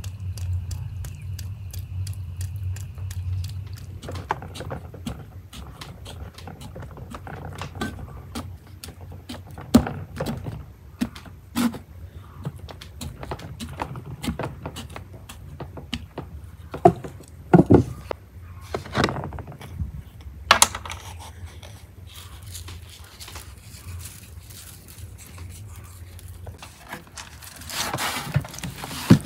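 A whole raw lamb carcass being handled and cut on a large metal tray: scattered knocks and scrapes of meat, knife and bones against the metal, the loudest several seconds in. Near the end comes a denser rustle as salt is rubbed over the carcass. The first few seconds hold only a steady low hum with regular ticking.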